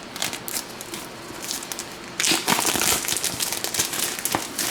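Packaging being handled during an unboxing: a few light clicks and rustles, then, a little over two seconds in, steady loud crinkling and crackling of the wrapping.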